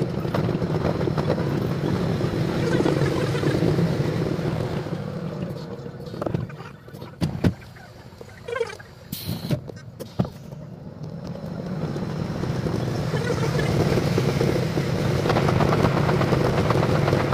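Running noise of a JR West 201 series electric commuter train heard from the driver's cab, sped up along with the tenfold-speed footage. It dies down for a few seconds in the middle, with a few sharp clicks, as the train passes through a station, then builds back up as the train gets going again.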